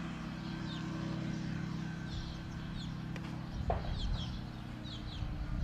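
Steady drone of a Kolb ultralight aircraft's engine as it flies past low, with birds chirping in short falling calls several times. A brief low bump a little over halfway through.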